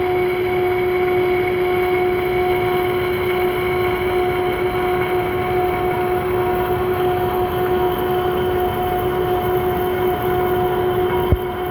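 Lathe machine running steadily with a constant whine over a mechanical rumble, and a single sharp click near the end.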